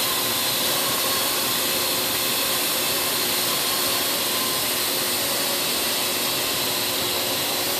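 Parrot drone's electric motors and propellers running at a steady speed: a constant hum of unchanging pitch over a rushing hiss.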